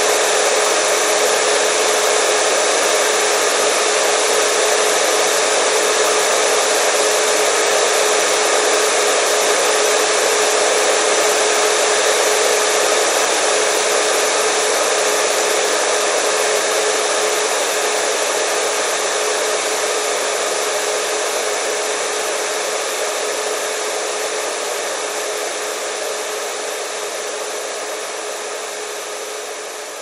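Steady white noise of the kind played to calm a crying baby, a constant whoosh with a faint steady hum running through it. It slowly fades over the last several seconds.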